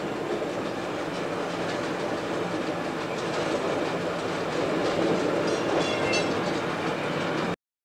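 SAR 'Bluebird' diesel railcar running along broad-gauge track: a steady rumble with wheels clicking over the rail joints. A few short high-pitched tones are heard about six seconds in, and the sound cuts off abruptly just before the end.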